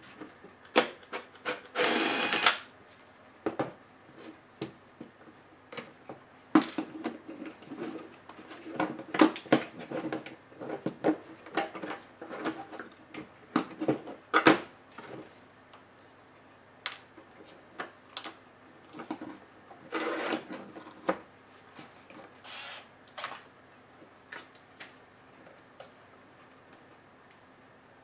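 A cordless electric screwdriver runs briefly about two seconds in, backing out a screw of an ASUS Eee PC 701SD netbook. Scattered clicks, taps and rattles of plastic laptop parts being handled follow, with another short noisy burst about twenty seconds in.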